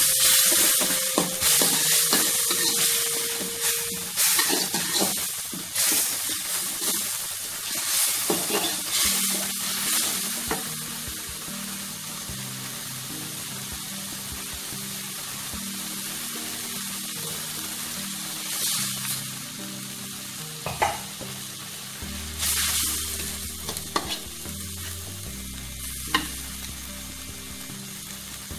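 Food frying in hot oil in a pan with a steady sizzle, stirred with a utensil that scrapes and clatters against the pan, busiest in the first ten seconds; a few sharp knocks on the pan later on.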